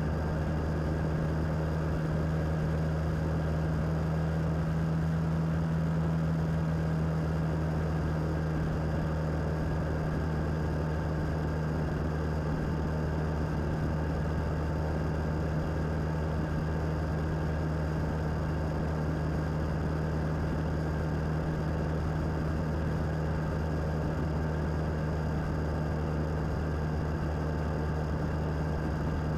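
Suzuki DL650 V-Strom's V-twin engine running steadily at an even cruising speed, a constant low hum with no change in pitch or level.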